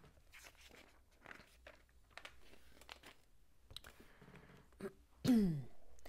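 Soft scattered clicks and rustles of hands handling LEGO pieces and moving across the desk. About five seconds in comes the loudest sound, a short falling vocal sound from the builder.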